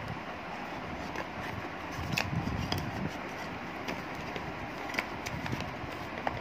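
Cardboard earbud packaging being handled: the box, its paper tray and inner lid lifted and set down, giving a few light taps and clicks over a steady background hiss.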